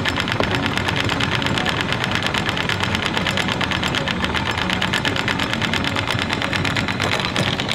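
A boat engine running steadily with a rapid, even knocking rhythm.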